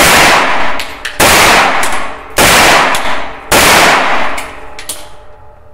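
Four single shots from a CZ Scorpion Evo 3 S1 semi-automatic carbine in 9×19 mm, a little over a second apart, each very loud with a ringing tail in the small range booth.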